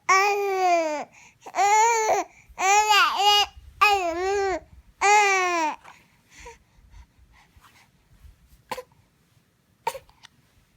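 A baby babbling crossly in five loud, high-pitched bursts, each rising and falling in pitch, over the first six seconds. Then two short, sharp hiccups follow about nine and ten seconds in.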